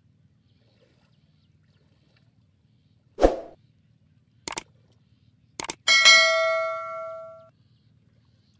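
Subscribe-button animation sound effect: a short swoosh about three seconds in, two pairs of mouse clicks, then a bell ding that rings on and fades over about a second and a half.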